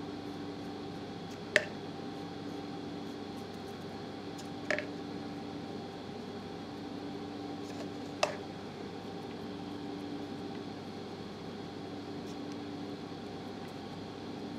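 Steady mechanical hum, with three sharp, separate taps at about one and a half, five and eight seconds in.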